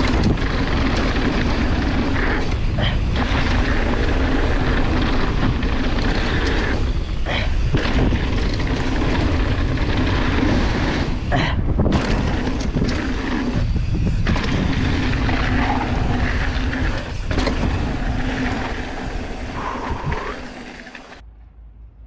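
Mountain bike ridden downhill on a dirt trail: wind rushing over the camera's microphone and knobby tyres rolling on dirt, with several sharp knocks and rattles from bumps. The sound cuts off suddenly near the end.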